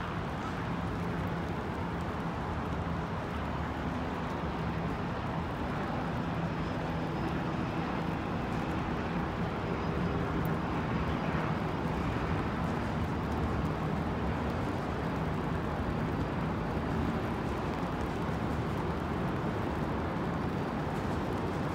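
Steady motor traffic noise with a low engine hum running through it, getting a little louder about halfway through.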